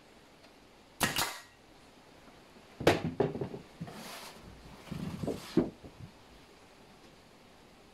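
Brad nailer firing once into a wooden drawer box, a sharp shot with a short tail about a second in, followed a couple of seconds later by a run of wooden knocks and clatter as the drawer box and tool are handled.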